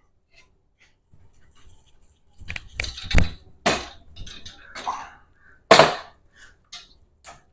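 Sharp, irregular metal clinks and knocks as a large shop-made pipe C-clamp is tightened down on unistrut, about eight strikes with the loudest near six seconds in.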